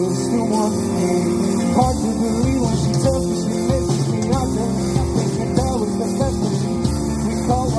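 Live band playing a rock song.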